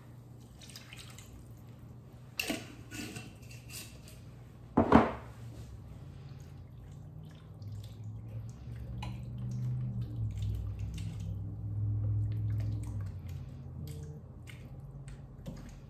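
A spoon stirring liquid in a stainless steel saucepan, sloshing and scraping the bottom, with two sharp knocks in the first five seconds, the second the loudest.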